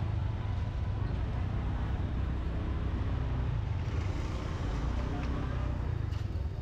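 Small motorbike engine running at low speed, a steady low rumble, with the chatter of a busy street market around it.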